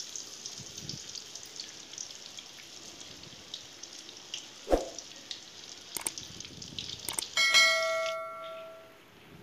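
Vada batter deep-frying in hot oil in a steel kadai, the oil sizzling steadily with small crackles. There is a short loud clink a little under five seconds in. About seven seconds in, a bright bell-like chime rings and fades over a second or so.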